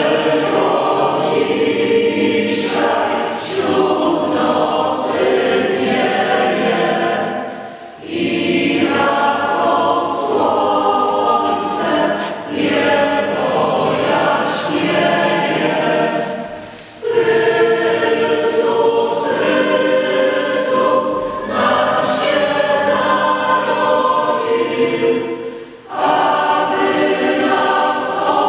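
Mixed choir of men's and women's voices singing in long phrases, with short breaks between phrases about every nine seconds.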